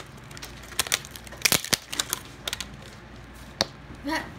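Plastic packaging being handled: scattered clicks and crinkles as a Mini Brands capsule ball is unwrapped and a fingernail picks at the sticker seal running down its side.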